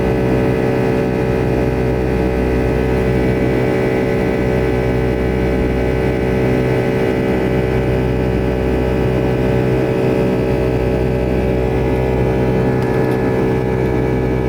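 Boeing 757-200 jet engines running steadily at high power: a constant drone of several held tones over a low rumble.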